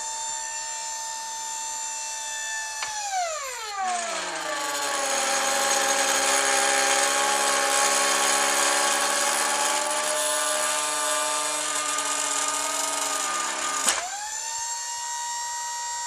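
Hydraulic pump of a tube bender's ram whining steadily. About three seconds in, its pitch drops and it gets louder and rougher as it labours against the pressure of bending a solid 7075 aluminum bar, which needs well over 1600 PSI. Near the end it snaps back up to its unloaded whine with a click.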